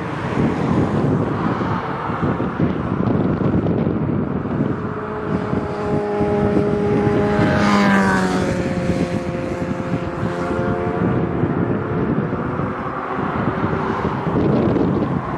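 Boeing 737 jet engines landing: a steady engine rumble with a set of whining tones that fall in pitch together about halfway through, and wind buffeting the microphone.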